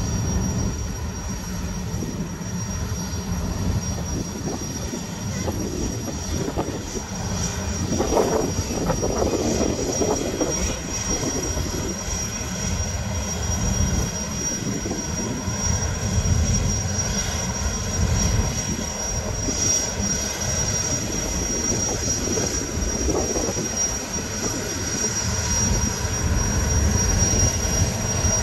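Boeing 929 Jetfoil's gas turbine engines running as the vessel moves off from the pier: a steady high whine over a low rumble, swelling louder for a moment about eight seconds in and rising slightly near the end.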